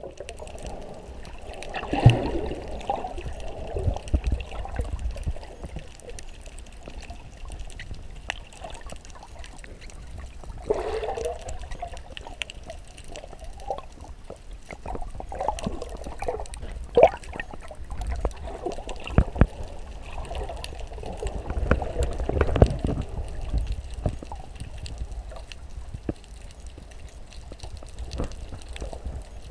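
Water sloshing and gurgling around a GoPro held underwater, muffled, in irregular swells with scattered clicks and knocks.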